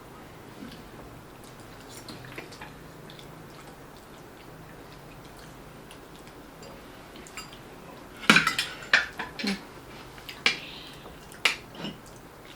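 Eating utensils clinking and scraping against plates and food containers during a meal. Faint, scattered ticks come first, then a quick run of sharp clinks about two-thirds of the way in.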